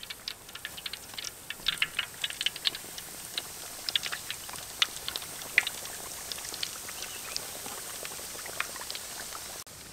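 Coated chicken legs deep-frying in hot oil in a wok: a dense crackle of pops as the pieces go in, easing after about three seconds into a steady sizzle with scattered pops.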